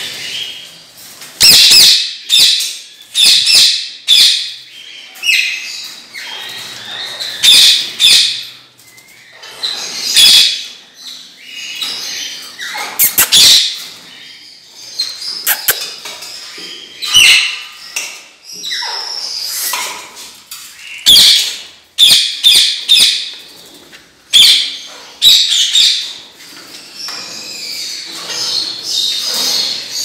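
Caged parrots calling loudly, with many harsh, high screeches in quick irregular runs throughout.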